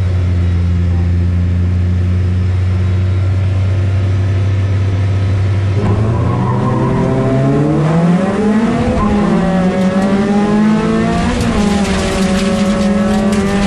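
In-car sound of a jokkis race car's engine held at steady revs on the start line, then launching about six seconds in: the note climbs quickly, dips at a gear change and carries on at high revs. Near the end, dirt and gravel spray and rattle under the car.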